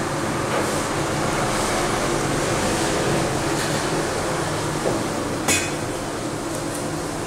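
Metal ladle dipping into a stainless-steel pot of sauce, clinking against the pot twice about five seconds in, the second clink sharper and louder, over a steady mechanical hum.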